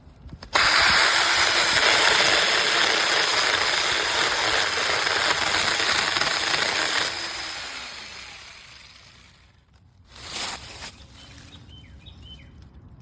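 Battery-powered mini chainsaw running and cutting, starting abruptly about half a second in; about seven seconds in the motor tone drops and the noise fades as the saw winds down. A brief, fainter noise follows about ten seconds in.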